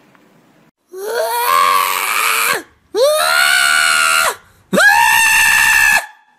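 Tortoiseshell cat yowling three times, each cry long and loud, rising in pitch at the start and then held.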